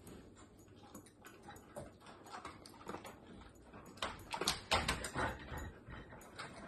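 A dog nosing and eating food out of a metal muffin tin on a tile floor, the tin clattering and scraping in short knocks, with a louder flurry of clanks about four to five seconds in.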